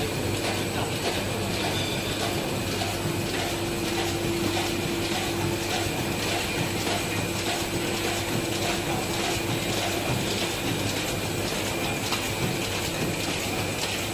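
ZH 450W high-speed cartoning machine running: a steady mechanical clatter of fast, regular clicking over a constant hum.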